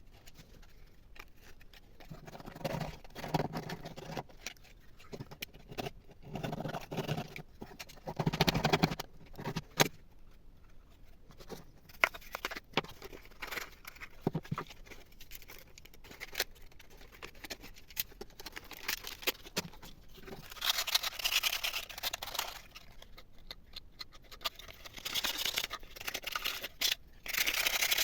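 Hand work on a workpiece: repeated bursts of scraping and rubbing a second or two long, with scattered sharp clicks and knocks between them.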